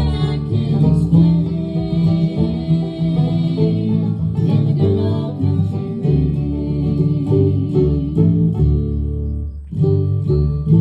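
Live acoustic country band playing: strummed acoustic guitar over upright bass notes, briefly dropping off just before the end.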